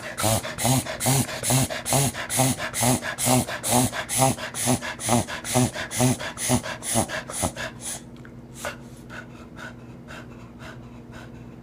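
Cocker spaniel in a fit of rapid, loud wheezing breaths, about three or four a second, each with a low tone; the fit stops about eight seconds in and a few fainter breaths follow. It is a breathing spasm whose cause the owner and vet have not found.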